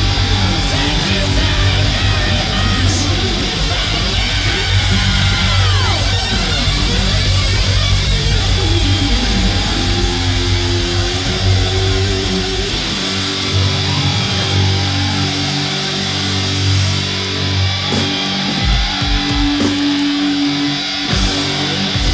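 Heavy metal band playing live: loud distorted electric guitar with held notes and a few long downward pitch bends over bass and drums, with heavy drum hits near the end as the song closes.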